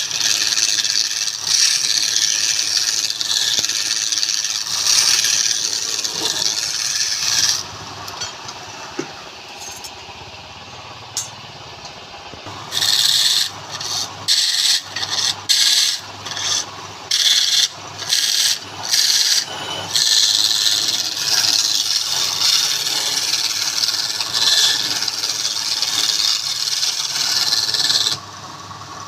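Wood spinning on a lathe scraping against a tool. There are several seconds of steady scraping, then a lull with only a low hum, then a run of short strokes, then steady scraping again that stops shortly before the end.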